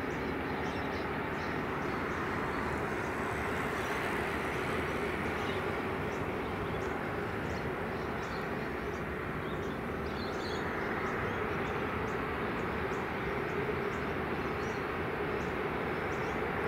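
Airbus A380 taxiing on the ground, its four jet engines running at low taxi power with a steady, even rumble and hum.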